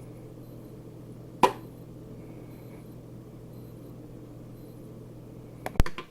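A steady low hum with a sharp click about a second and a half in and two more clicks close together near the end.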